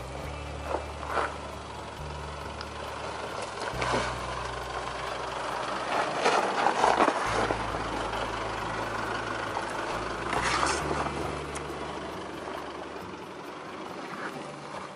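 Isuzu MU-X's 4JJ1 turbo-diesel running low and steady as it crawls down a steep rocky track in low range. Its tyres crunch over rock and loose gravel several times, loudest about six to seven seconds in.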